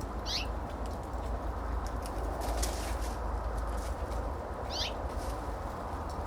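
A bird at a backyard feeder giving two short, high, falling squeaky calls about four and a half seconds apart, over a steady outdoor background hum.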